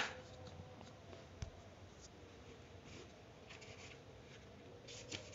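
Quiet room tone with a faint steady hum, a sharp click at the very start, a smaller click about a second and a half in, and a few faint scratchy rustles.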